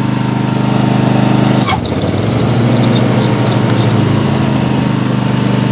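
Kohler 26 hp V-twin engine of a Craftsman YS4500 garden tractor running steadily. A sharp clunk comes about a second and a half in, then the engine note dips and wavers for a couple of seconds before settling back.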